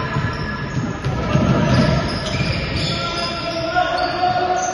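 Basketball being dribbled and bouncing on a hardwood court in a sports hall, with players' and spectators' indistinct voices.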